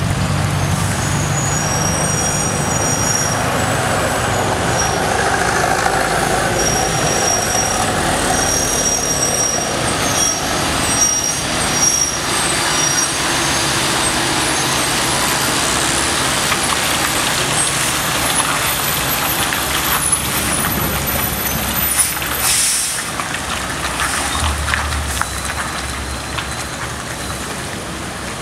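Heavy diesel engine of a MAN TGS 40.400 truck running as the truck drives past and away, mixed with other road traffic. A short hiss comes a little over three-quarters of the way through.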